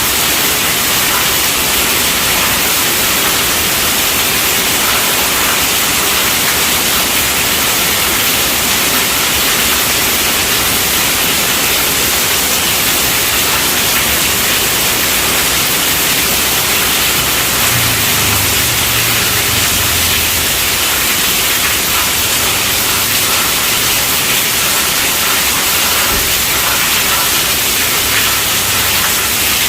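Steady rainfall, an even hiss that holds unchanged throughout.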